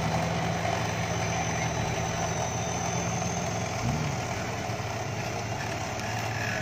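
Off-road SUV engine running at low revs as the vehicle crawls up out of a muddy ditch, with a brief rise and fall in engine pitch about four seconds in.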